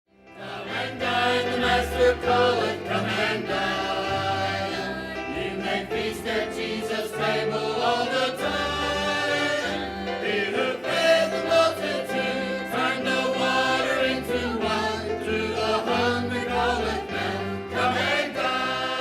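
Intro music: voices singing together as a choir over a changing bass line, with a beat of short sharp strikes. It fades in over the first second.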